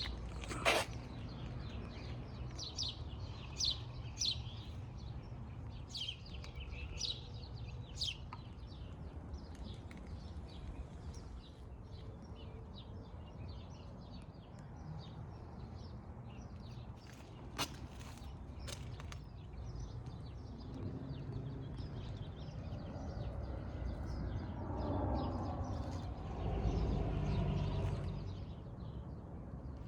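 Birds chirping in short, quick calls during the first several seconds, over a steady low outdoor rumble that swells louder in the last third.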